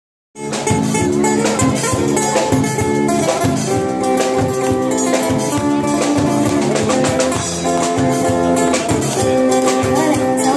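Street band playing an upbeat Iban joget dance tune: guitar over a drum kit keeping a steady beat. The music starts abruptly about half a second in.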